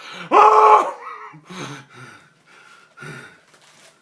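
A man's voice giving a loud, high-pitched wail for about half a second, then breaking into gasping, panting breaths that grow fainter.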